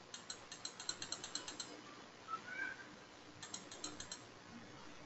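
Faint runs of rapid small clicks from computer controls, about eight a second: one run early and a shorter one past the middle.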